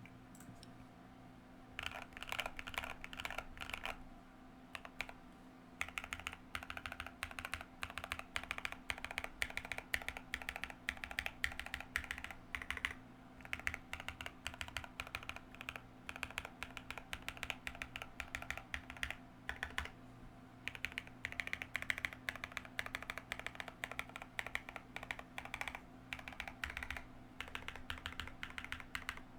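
Typing on a Keychron Q1 mechanical keyboard with lubed NK x Kailh Cream linear switches and MT3 keycaps: fast runs of deep, muted keystrokes. The typing starts about two seconds in and pauses briefly twice.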